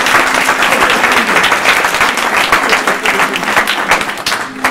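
Audience applauding, dense clapping from many hands that stops near the end.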